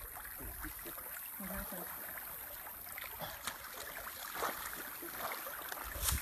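Steady rush of a river flowing over shallow riffles, with a brief low rumble near the end.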